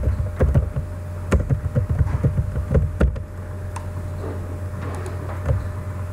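Typing on a computer keyboard: a quick run of key clicks that stops about three seconds in, with one more click near the end. A steady low hum runs underneath.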